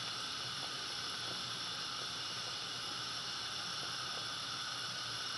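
Pot of meat at a rolling boil: a steady bubbling hiss with a few faint light taps. This is the first short boil that brings up the scum of curdled protein and blood, before that water is poured off.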